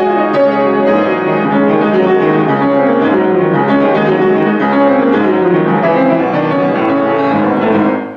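Grand piano played fast and loud, many notes overlapping and ringing together. About 8 seconds in the hands come off the keys and the sound dies away quickly.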